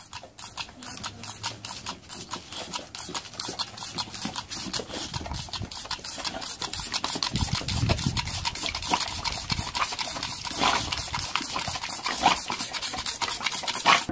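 A boxer dog snapping and gulping at a jet of water from a squirt toy: a rapid run of wet clicks and splashes, several a second.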